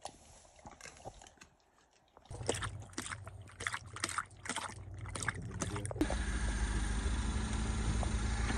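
Husky lapping water from a plastic tub, a quick run of wet laps at about three a second. About six seconds in, a car engine takes over, idling steadily with a low hum.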